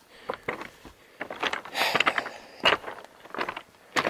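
Footsteps crunching up a slope of loose, broken rock, with stones clinking and scraping underfoot at each uneven step. The steps are loudest around the middle.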